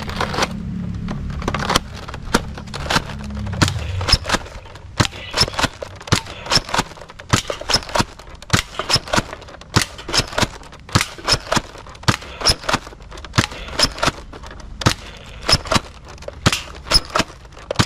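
Nerf Delta Trooper spring-powered dart blaster being primed and fired again and again: a quick, irregular series of sharp plastic clacks and pops, about two to three a second. A low rumble sits under the first few seconds.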